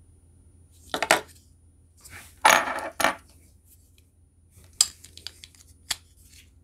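Clicks and clatter of a die-cast Matchbox Bulldozer toy's metal body and plastic base and parts coming apart in the hands. Its rivet was never spun over ('unspun'), so nothing holds the model together. There is a short clatter about a second in, a longer one about two and a half seconds in, then a few single sharp clicks.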